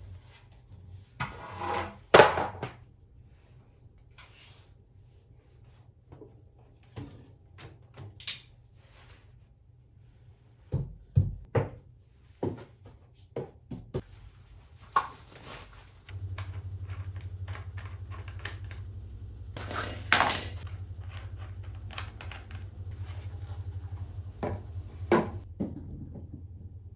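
Scattered thunks, knocks and clatter of household objects being handled and set down. A low steady hum starts a little past halfway and runs on under them.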